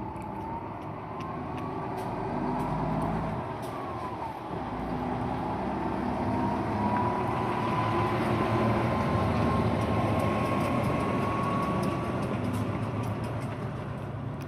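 A motor vehicle's engine rumbling with a thin whine, growing louder to a peak about eight to ten seconds in and then easing off, as if passing close by. Faint sharp clicks are scattered through it.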